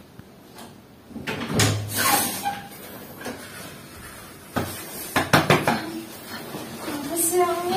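Rustling of bedding and several soft bumps as a person climbs onto a bed, with a short murmur near the end.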